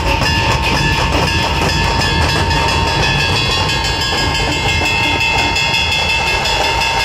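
Dhol-tasha ensemble drumming: dense, rapid, continuous beating of big barrel dhol drums and high tasha drums, with steady metallic ringing above.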